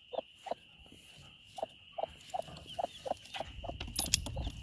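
Broody Barred Rock hen clucking in short low notes, about two or three a second, with faint high peeps over a steady high whine. Near the end there are a few sharp knocks and a low rumble as a dog comes up close.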